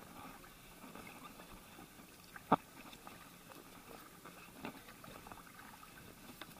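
Faint water lapping around an inflatable kayak, with one sharp knock about two and a half seconds in and a couple of lighter knocks later.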